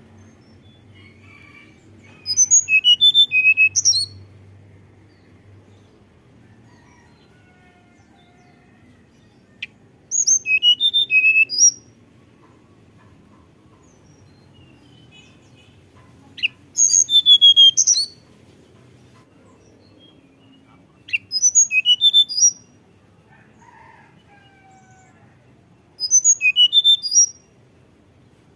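Hill blue flycatcher singing: five short, high, fluting phrases of quick rising and falling whistled notes, each lasting about a second and a half, spaced five to seven seconds apart.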